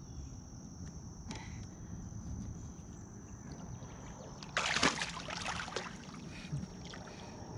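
A catfish lowered over the side of a kayak splashes into the water about four and a half seconds in and thrashes briefly at the surface. Under it runs a steady, high-pitched drone of insects.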